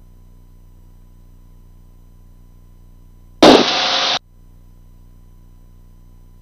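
A burst of radio static on the aircraft's radio audio feed, starting suddenly about halfway through, loudest at its onset and cutting off sharply after under a second, like a squelch break or a keyed transmission with no words. Under it runs a faint steady low hum.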